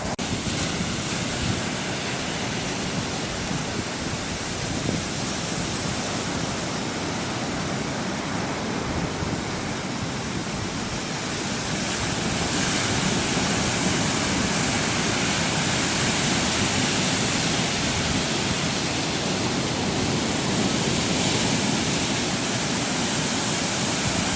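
Sea surf: a steady rush of breaking waves that grows louder about halfway through.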